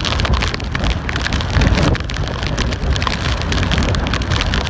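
Hurricane rain and wind: a loud, steady rush of heavy rain with constant fine crackle, over a low rumble of wind buffeting the microphone.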